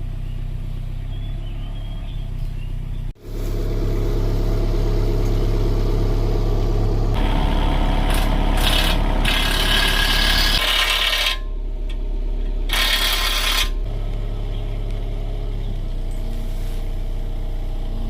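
Mini excavator's diesel engine running steadily, with a brief dropout about three seconds in and two louder stretches of rushing, hissing noise in the middle.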